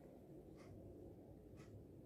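Near silence with two faint, short scratchy strokes, about half a second and a second and a half in: a paintbrush being drawn over a leaf laid on newspaper.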